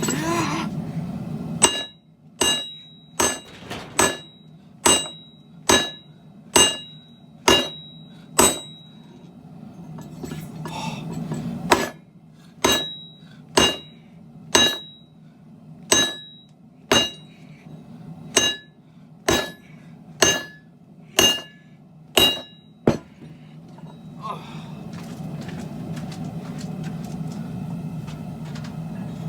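Hammer blows on hot Damascus steel over an anvil, evenly paced at a little over one a second, each strike ringing. They come in two runs with a short pause between, over a steady low hum that is louder when the hammering stops.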